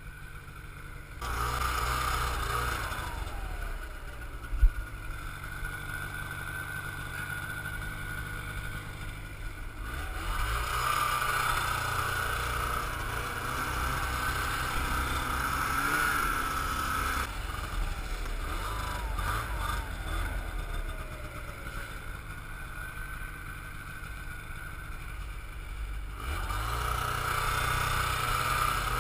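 Snowmobile engine running under the rider, its revs rising and falling several times as it travels over snow, quieter at the start and again near the end. One sharp knock about five seconds in.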